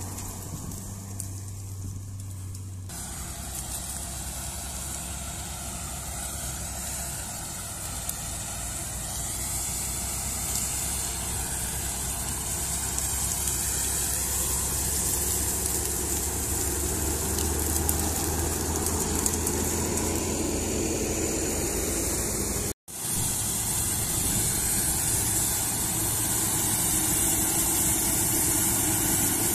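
Diesel engines of a New Holland tractor and a Claas Lexion combine harvester running steadily at work in the field. The sound drops out for a moment about three-quarters of the way through, then resumes.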